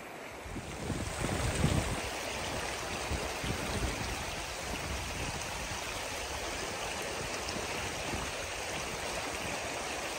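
Steady rush of water in the shallow braided channels of a silty glacial river, with a few low gusts of wind on the microphone in the first couple of seconds.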